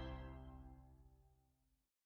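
The closing chord of a pop song fading out, its held notes dying away to silence within about a second and a half.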